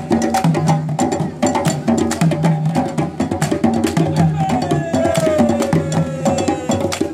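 West African drum ensemble: djembes slapped by hand and tall barrel drums struck with sticks, locked in a fast interlocking rhythm over a low two-note bass pattern that repeats about once a second, with hand claps. About four and a half seconds in, a long falling call rises over the drums.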